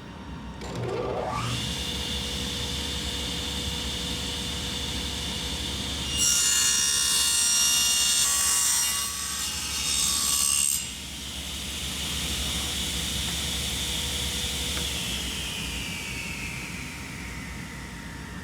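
Electric power saw switched on and spinning up with a rising whine, then cutting through wood for about four and a half seconds with a short break in the middle. It is then switched off, and the motor whine falls as it slowly coasts to a stop.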